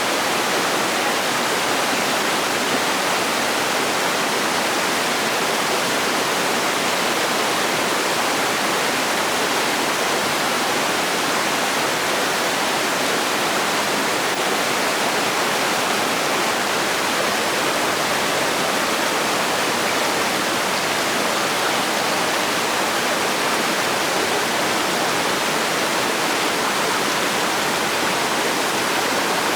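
Steady, unchanging rushing of flowing water, an even hiss with little deep rumble.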